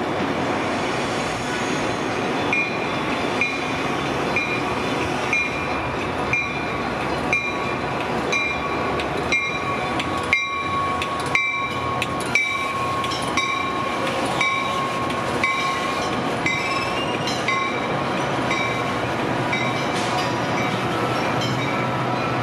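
Grade-crossing warning bell ringing about once a second over the steady rumble of a Metra diesel push-pull commuter train of bilevel coaches, which comes through the crossing near the end. A drawn-out thin squeal is held for several seconds around the middle.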